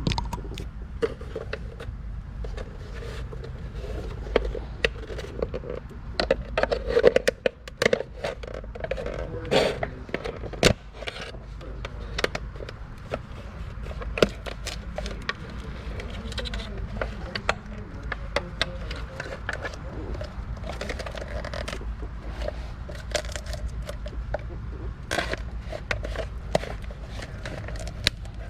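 Hands working on a plastic car side-mirror assembly, taking its parts off: irregular clicks, taps and scraping of plastic and small hardware, with a low steady rumble underneath.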